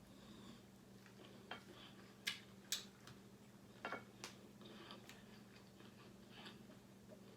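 Faint chewing of chicken, with a few irregular sharp crunching clicks and smacks over a low steady hum.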